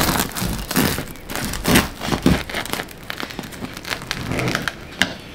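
Knife sawing down through a crusty sourdough loaf, the dark crisp crust crackling and crunching unevenly as the blade goes through.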